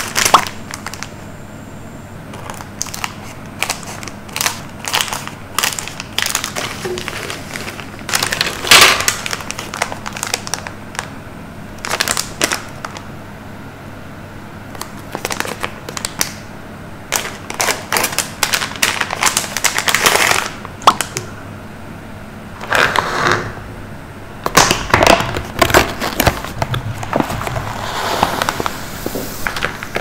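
Plastic and foil food packaging of a self-heating ready-meal pack crinkling and crackling as it is handled and opened, in irregular bursts with sharp clicks.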